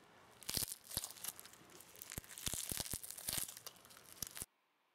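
Clear foam-bead slime being stretched and squeezed by hand: dense sticky crackling and popping with many sharp clicks, cutting off suddenly near the end. The slime is still a little sticky, short of activator.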